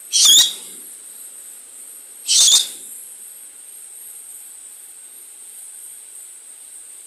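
White-eyed parakeet giving two short, shrill screeches about two seconds apart, the first right at the start.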